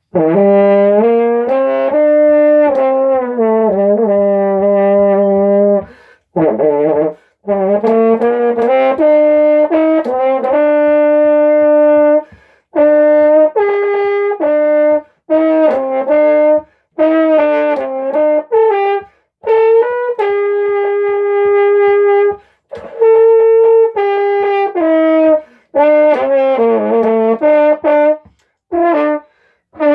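Solo French horn in F playing a fast, loud band part: phrases of held notes and quick runs, broken by short rests every few seconds.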